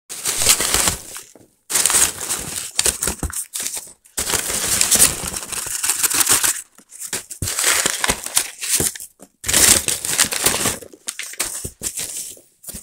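A hand rummaging through polystyrene packing peanuts in a cardboard box: rustling and crunching in bursts of two to three seconds, with brief pauses between them.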